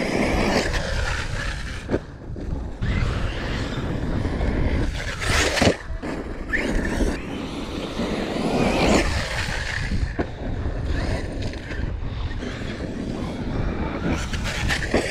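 Traxxas Sledge brushless electric RC truck driving on dirt, its motor whine rising and falling with the throttle, with louder swells about five and nine seconds in. Wind rumbles on the microphone underneath.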